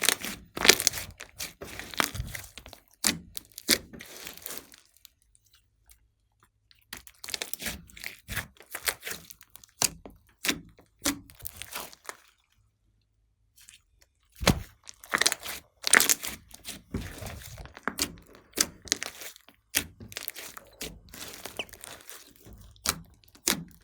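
Slime being squished and worked by hand, giving dense runs of sharp clicks and pops in three bursts with short pauses between them.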